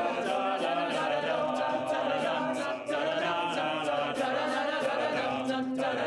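All-male a cappella group singing in harmony, several voices sustaining pitches together.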